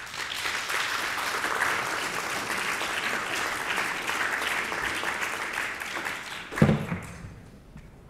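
Audience applauding, a steady patter of many hands clapping that dies away near the end. About six and a half seconds in there is a brief, loud, low thump.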